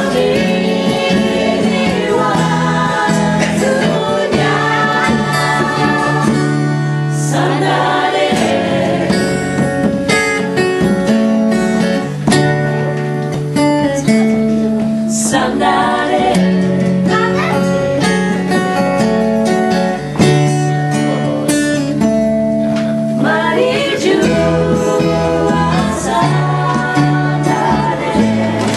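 A song performed by singers with guitar accompaniment, over held low notes that change every second or two.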